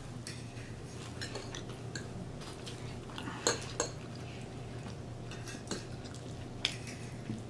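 Metal fork clinking and scraping against a plate while cutting and picking up food, with a few sharp clinks, the loudest about three and a half seconds in and again near the end.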